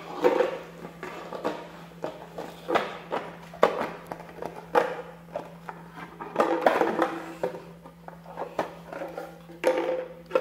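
A Pomeranian puppy playing on a hard laminate floor: irregular taps, knocks and scrabbles from its paws and mouthing, with a steady low hum underneath.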